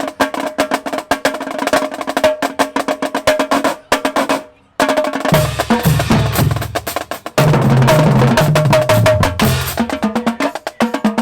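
Marching band drumline playing a fast cadence of rapid snare and tenor drum strokes. It drops out briefly about four seconds in, then comes back with tuned bass drums playing low notes that step up and down under the snares before thinning out near the end.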